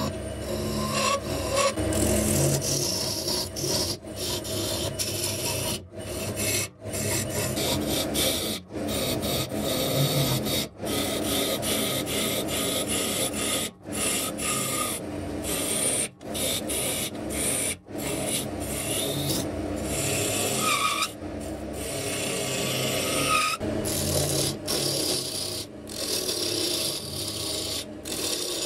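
A gouge cutting a spinning wooden blank on a wood lathe: a continuous rasping, scraping cut as shavings peel off, broken by many brief gaps.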